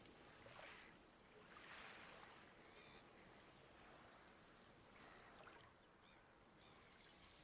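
Faint light waves washing on a pebble beach, a soft wash that swells and fades a few times.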